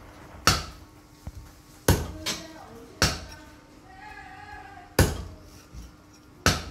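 Meat cleaver chopping chicken pieces on a thick round wooden chopping block: about six hard, unevenly spaced chops, with a lighter knock between the first two.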